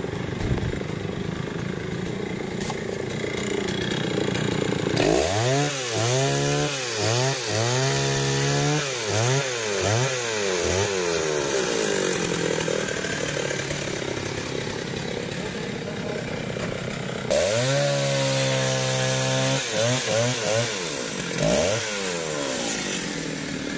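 Stihl two-stroke chainsaw running, revved up and down again and again, about once a second, in two spells: one from about five seconds in, another near the end, settling back to a steadier run between them.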